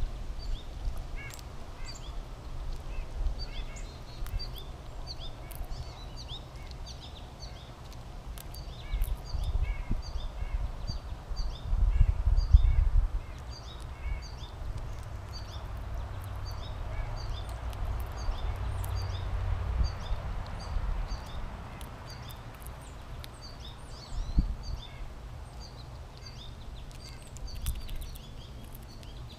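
Small birds chirping repeatedly, many short high notes, over a low rumble that swells about halfway through.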